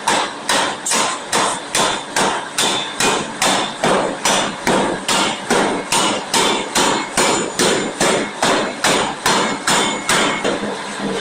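Forging hammer striking a workpiece in a steady, rapid rhythm of about two and a half blows a second. The blows are briefly lighter near the end.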